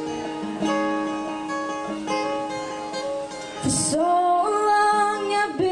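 Acoustic guitar picking a slow, gentle accompaniment; about two-thirds of the way in a woman begins singing into a microphone, holding long notes over the guitar.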